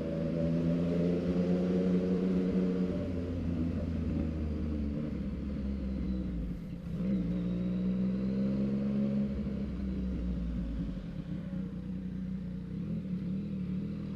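Yamaha MT-09 three-cylinder engine running through a Mexx full exhaust while the bike is ridden, its pitch rising and falling with the throttle. It drops off briefly about halfway through, then picks up again.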